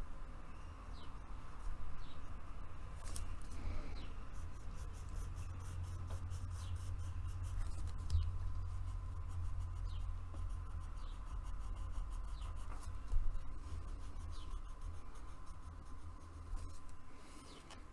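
Coloured pencil scratching across paper as outline strokes are drawn, over a steady low hum.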